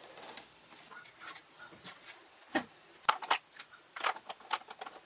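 Scattered light clicks and metallic clinks of small hardware being handled by hand: an idler pulley and a bolt with its nut being fitted. Two sharp metal clinks come about three seconds in, and a quick run of clicks follows a second later.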